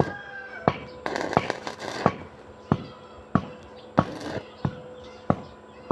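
Hammer striking metal in a steady rhythm, about ten blows at roughly a stroke and a half per second, each a sharp clang with a faint ring between blows.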